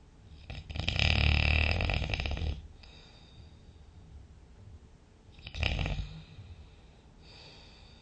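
A sleeping person snoring: one long, loud, rattling snore about half a second in, a shorter snore around five and a half seconds in, then a faint breath near the end.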